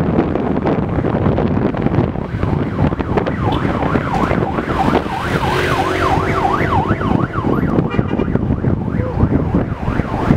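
A vehicle siren sounding a rapid up-and-down yelp for about four seconds in the middle, over the steady rumble and wind noise of driving along in traffic.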